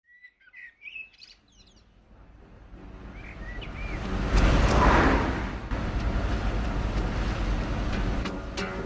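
Birds chirping, then an old car's engine approaching and growing louder, peaking about halfway and then running steadily with a low rumble. A few sharp clicks come near the end.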